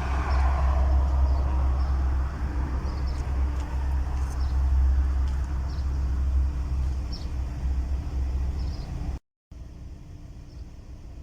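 Low, steady rumble of a motor vehicle engine running close by. The sound cuts out abruptly about nine seconds in, leaving a much fainter background hum.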